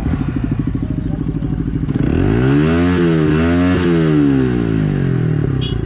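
Single-cylinder sport motorcycle idling with a steady beat, then revved up about two seconds in, held high for about a second and a half, and let fall back to idle. This is a rev-up to show off the exhaust sound.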